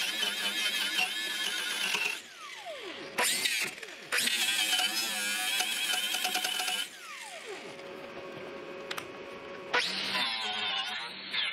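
Angle grinder with a wire wheel scouring the steel mower deck down to bare metal. It runs in three stretches with a steady high whine, and twice the motor winds down with a falling whine before starting again.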